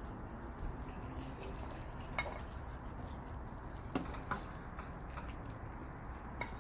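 A spoon scooping pieces of salmon head out of a stainless steel pot of adobo sauce, with wet sloshing and a few short clinks of the spoon against the pot, about two, four and six seconds in, over a low steady hum.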